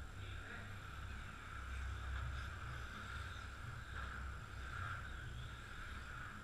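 Radio-controlled touring car running laps, a high whine from its motor and tyres that swells and fades as it passes, over a steady low rumble.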